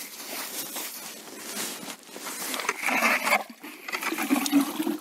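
Ice auger driven by a cordless drill boring through wet, slushy ice, the bit grinding and churning slush and water in the hole. The motor runs louder and steadier in the second half as she presses down on it.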